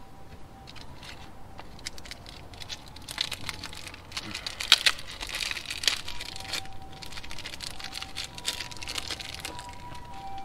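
Hands working on the boost controller's vacuum hoses and fittings: irregular rustling and crinkling with a run of small clicks, busiest in the middle, and one sharp click about five seconds in.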